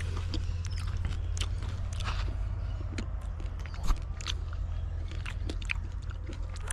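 A person chewing fresh grapes close to the microphone: irregular small crunches and wet clicks, one louder one near the end, over a steady low rumble.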